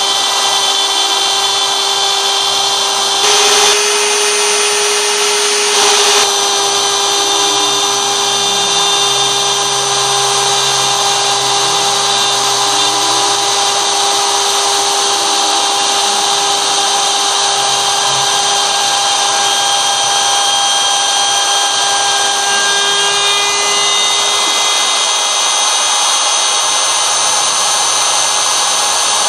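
Hand router used as a CNC spindle running at speed, its bit cutting a circular groove into a wooden board, with a high steady whine. Beneath it the Nema 23 stepper motors give a lower whine that rises and falls in pitch as the axes trace the circle. Two short, louder bursts of noise come about three and a half and six seconds in.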